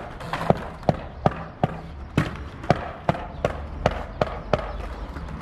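Skateboard clacking against stone paving tiles during freestyle tricks, the tail and wheels striking the ground in a quick irregular run of sharp knocks, about two or three a second.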